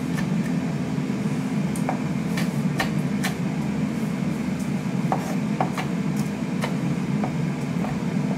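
Chef's knife chopping small chillies on a wooden chopping board: about a dozen irregular knife taps, over a steady low hum.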